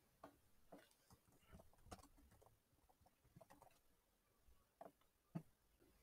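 Near silence with faint, irregular clicks of a computer keyboard and mouse, about a dozen scattered taps, the loudest a little over five seconds in.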